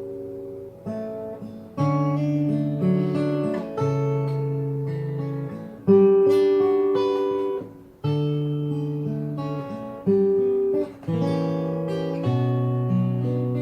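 Yamaha L-12SN all-solid acoustic guitar played fingerstyle, with ringing chords and a moving bass line plucked at a slow pace, each chord sharply attacked and then left to decay.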